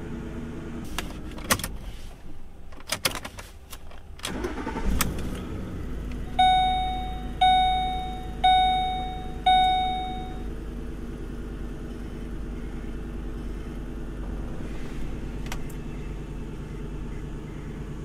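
2006 Mercury Mountaineer engine running, switched off with a click of the ignition key, then cranked and restarted a couple of seconds later, catching quickly and settling into an idle. The engine has exhaust manifold leaks. About two seconds after the restart, a dashboard warning chime sounds four times, about a second apart.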